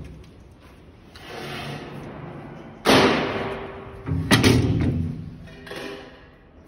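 Sheet-metal access door of a Bühler MKLA bran finisher being handled and swung open. A scraping slide comes first, then two loud metallic bangs about a second and a half apart, each ringing off, and a smaller knock near the end.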